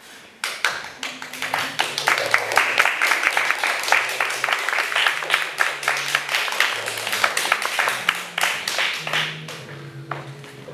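Audience applauding, starting about half a second in and thinning out near the end, over music with held low notes that change every second or so.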